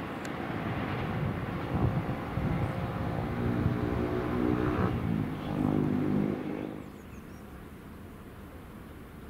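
Engine of a yellow self-propelled railway track vehicle running as it approaches on the rails, with a pitched engine note that swells and shifts in the middle. The sound cuts off abruptly about seven seconds in, leaving a faint open-air background.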